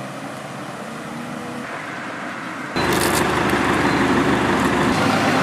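Car engines and road traffic on a street. The sound jumps abruptly louder about three seconds in, to a steady engine hum.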